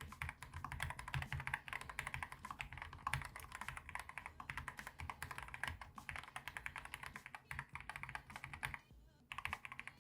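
Typing on a mechanical keyboard with Outemu GTMX Black middle-profile linear switches (POM stem, nylon bottom housing, polycarbonate top housing): a rapid, continuous run of keystrokes, with a brief pause about nine seconds in.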